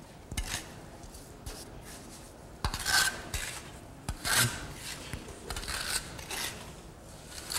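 A trowel scraping and working wet lime-and-sand intonaco plaster on a board, in a series of separate scraping strokes, the loudest about three seconds in and again just past four seconds. He is going over the plaster to break up any clumps of lime, which would dry fast and form hot spots.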